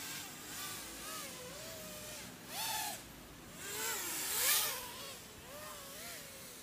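Micro quadcopter's brushless motors (DYS 1104 4000 kV) spinning Gemfan 3025 props: a whine that rises and falls in pitch as the throttle changes. It swells louder twice, about two and a half and four and a half seconds in.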